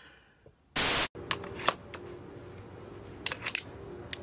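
A short burst of TV-static hiss used as a transition effect, cutting off abruptly. It is followed by a steady low hum with a few sharp clicks scattered through it.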